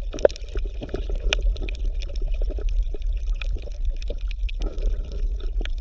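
Underwater ambience: bubbling water with irregular crackles and clicks over a steady low hum.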